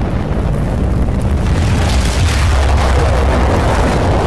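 Cinematic sound effect of a flaming fireball streaking down trailing smoke: a deep continuous rumble with a rushing whoosh that swells in the middle.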